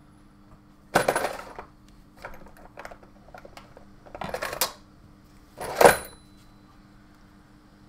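Small metal tools and parts on a workbench clinking and clattering as they are rummaged through in a search for flux. It comes in several bursts, with scattered small clicks between them. The loudest burst is about six seconds in and ends in a brief metallic ring, over a faint steady hum.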